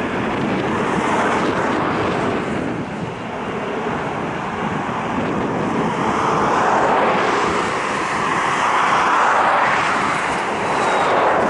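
Jet engines of an Airbus A321 airliner climbing away after takeoff: a steady, broad rush of jet noise that grows a little louder in the second half.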